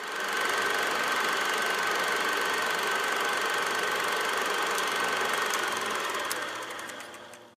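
Production-logo intro sound effect: a steady whirring noise with a thin high tone running through it. A few sharp clicks come in the second half, and it fades and cuts off at the end.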